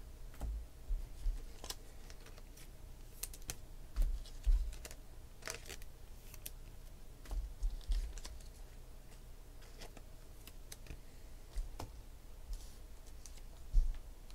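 Handling noise at a desk: scattered, irregular light clicks and taps with a few dull thumps on the tabletop, the loudest thump near the end.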